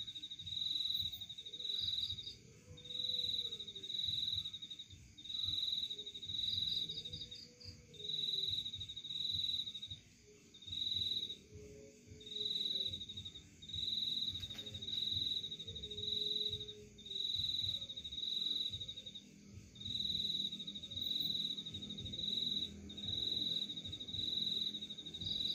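Cricket chirping: a steady series of pulsed, high-pitched trills, each under a second long, repeating about once a second with short pauses, over faint low wavering tones.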